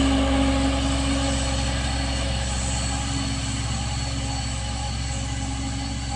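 Diesel truck engines labouring uphill as a Fuso truck tows a Colt Diesel that ran out of power on the climb. The steady low drone slowly fades as the trucks pull away.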